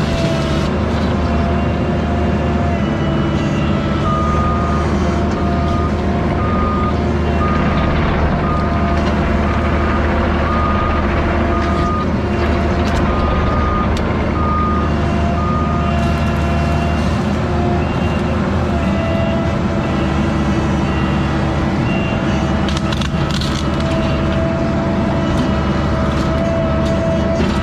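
Diesel engines of compact earthmoving machines, a mini excavator and a track loader, running steadily at work. A backup alarm beeps repeatedly from about four seconds in, and a second, higher-pitched backup alarm beeps from about sixteen seconds in.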